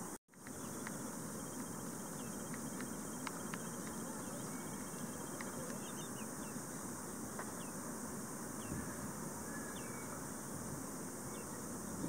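Outdoor ambience: a steady high-pitched insect drone with scattered short chirps and ticks, over a low wash of wind noise.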